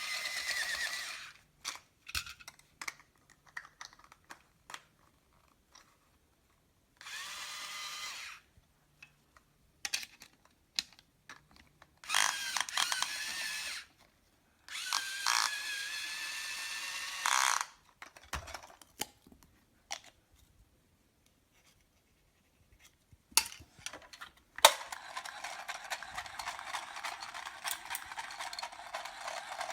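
Battery-powered toy chainsaw with a soft rubber chain, its small electric motor buzzing and whining in about five separate bursts of one to five seconds, the longest near the end, with plastic clicks and knocks between the bursts.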